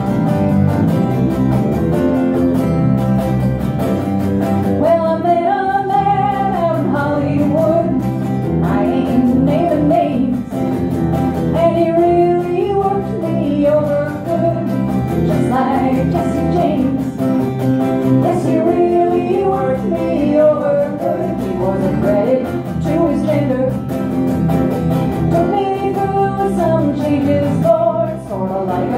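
A live acoustic trio playing a song: strummed acoustic guitar and electric bass guitar, with a woman singing the lead melody from about five seconds in.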